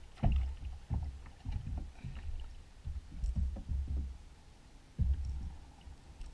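A kayak rocking on the water: a string of low, uneven thuds as water knocks against the plastic hull.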